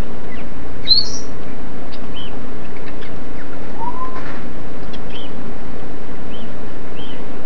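African grey parrots chirping and whistling over the steady hiss of heavy rain: a sharp high call about a second in, a short rising whistle about four seconds in, and brief chirps every second or so.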